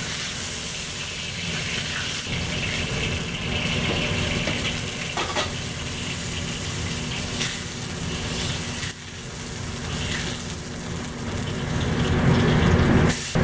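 Commercial wok burner running on high heat with a steady rushing roar, with hissing and sizzling from the hot wok. A few faint clinks of a metal ladle or spatula against the wok, and the noise grows louder near the end.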